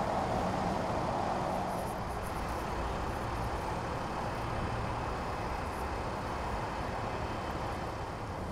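Steady street traffic noise, a low even rumble of vehicles.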